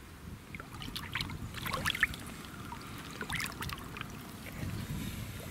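Water splashing and trickling in two short spells, about a second in and again around three seconds in.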